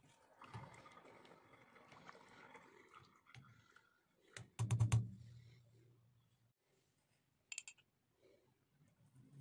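A ladle stirring soup in a steel pot. Soft swishing comes first, then a quick run of sharp clinks about halfway through as the ladle knocks against the pot, and a few lighter clicks near the end.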